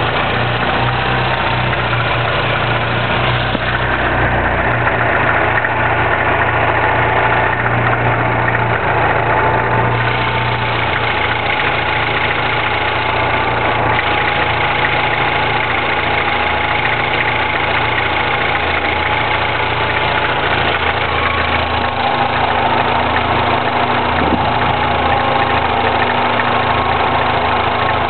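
2009 Mini Cooper S (R56) 1.6-litre turbocharged four-cylinder idling steadily on a cold start, the idle note shifting a little a few times. The owner suspects a timing chain rattle.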